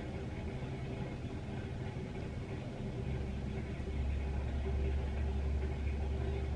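A low steady rumble with a faint hum, growing stronger about three to four seconds in.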